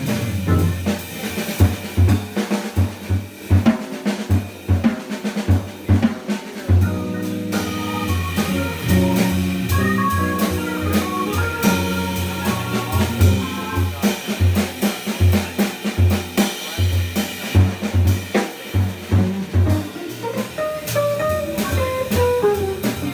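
Jazz organ trio playing live, with the drum kit to the fore: busy snare and bass drum hits over held organ bass notes. Archtop electric guitar lines come in through the middle and again near the end.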